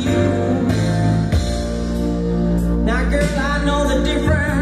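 Recorded music with a singing voice and strong bass, played through a CCE stereo amplifier and its loudspeakers.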